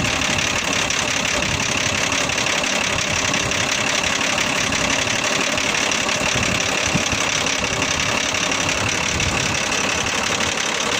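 Turbodiesel engine of an off-road 4x4 idling with the bonnet open, a steady even clatter.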